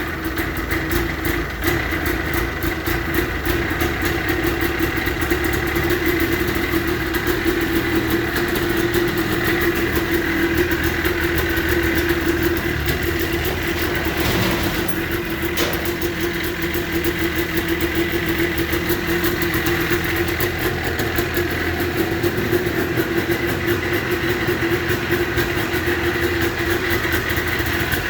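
The rebuilt 1989 Yamaha Exciter 570 snowmobile's two-stroke twin engine idling steadily.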